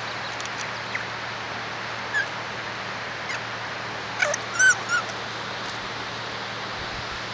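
Kea calling: a few short, high squealing calls, the loudest cluster about four to five seconds in, over a steady background hiss.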